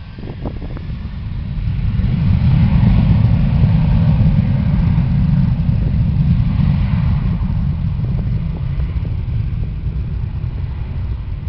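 Airliner jet engine noise: a deep roar that builds over the first two to three seconds and then slowly eases off.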